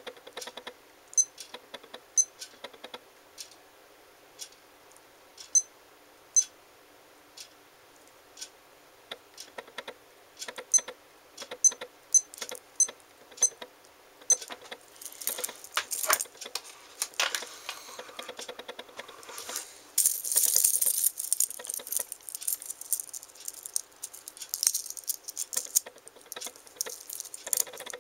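Sharp clicks of an LED sports watch's side buttons being pressed, spaced irregularly about once a second. From about halfway the clicks give way to a dense jangling rattle of the watch's metal link bracelet being handled and fastened on the wrist.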